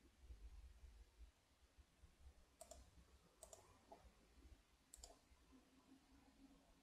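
Near silence with a low hum, broken by three faint clicks of a computer mouse about two and a half, three and a half and five seconds in.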